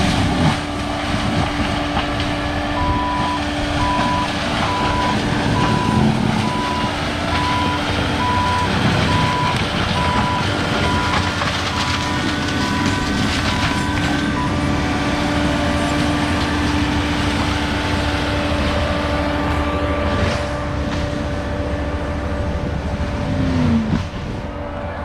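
Diesel engine of heavy land-clearing machinery running steadily, with a backup alarm beeping about once a second for roughly ten seconds starting about three seconds in. The engine note drops near the end.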